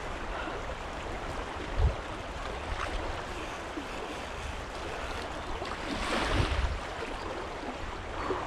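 Steady rush of shallow river water flowing over riffles, with a short low bump about two seconds in and a louder rumbling swell around six seconds.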